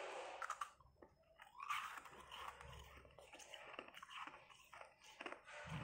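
Carbonated ice being bitten and chewed: a close run of soft, quick crunches as the porous ice breaks up in the mouth.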